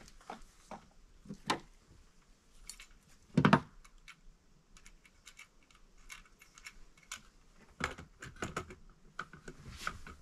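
Small clicks, taps and rattles of a chainsaw's bar, chain and a hand tool being handled while the chain is fitted and tensioned, with one louder knock about three and a half seconds in.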